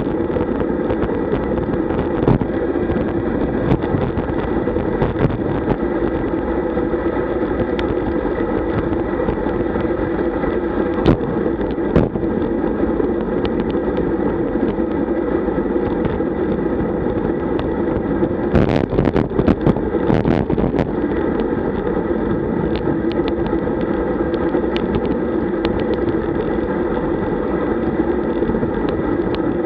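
Steady muffled rush of wind and tyre noise from a road bike riding at about 40 km/h, picked up by a camera mounted on the bike. A few sharp knocks come through it, several of them close together about two-thirds of the way through.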